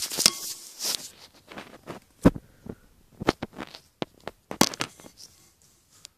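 Handling noise from a phone being moved about close to the glass of a fish tank: a rubbing, scraping stretch at first, then a string of scattered sharp knocks and clicks, the loudest about two seconds in.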